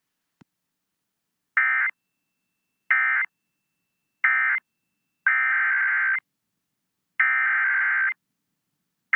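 Emergency Alert System SAME data bursts, the shrill digital tones of the alert code. First three short end-of-message bursts about a second apart close the tornado warning. Then two longer header bursts and the start of a third announce the next alert, a severe thunderstorm warning.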